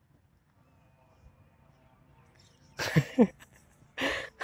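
A person's voice giving short, loud, wordless outbursts. About three seconds in come two quick cries, each falling steeply in pitch. A second later comes another loud, breathy burst.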